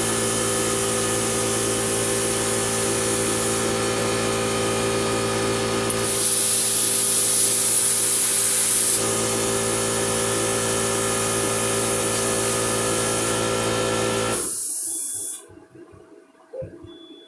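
Warfox plasma cutter running: a steady hiss of air with an electric buzz, brighter and louder in stretches, cutting off suddenly about fourteen seconds in.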